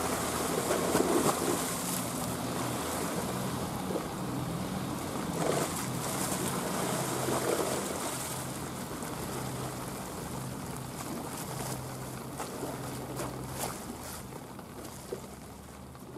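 Boat wake sloshing and splashing against a concrete slipway, over a steady low engine drone from a boat on the water. Both fade gradually over the second half.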